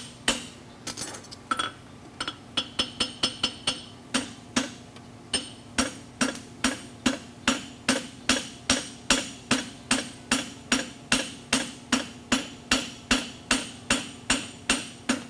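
Farrier's hand hammer striking a red-hot steel horseshoe on an anvil, forging it. The blows come scattered at first, then settle from about six seconds in into an even rhythm of about three a second, each with a brief metallic ring.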